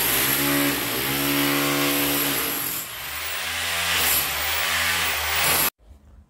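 Handheld electric power tool running, its motor pitch rising and falling as it works. The sound cuts off abruptly near the end.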